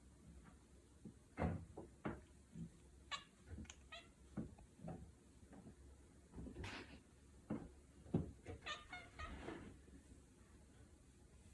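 Domestic cat chattering: several short bursts of quick, stuttering chirps and clicks, with pauses between them. It is the sound a cat makes when it has spotted prey.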